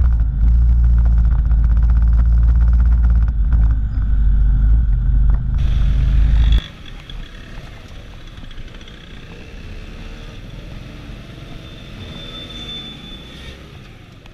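Small motorcycle engines riding in slow town traffic: a loud low rumble for the first six and a half seconds, then it cuts suddenly to a quieter small engine whose pitch rises and falls as the bike speeds up and slows, fading out near the end.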